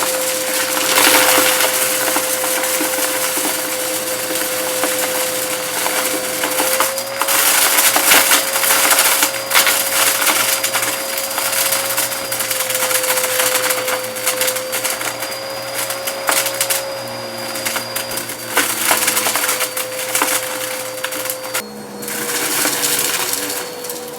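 Bissell vacuum cleaner running over a shag rug: a steady motor whine that shifts a little in pitch now and then, under continuous crunching and crackling as debris is sucked up from the pile.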